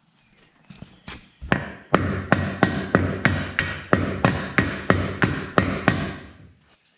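Hammer blows at the dump cart's wheel and axle: a steady run of about three strikes a second for some four seconds, each with a short ring.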